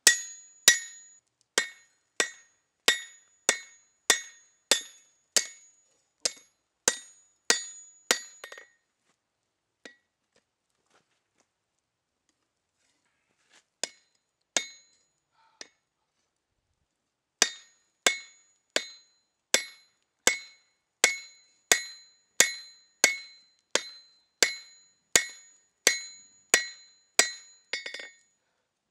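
Hand hammer striking a hot spring-steel blade on an anvil, about two blows a second, each with a bright ringing tone. The hammering stops for about nine seconds midway, with only a few single taps, then starts again.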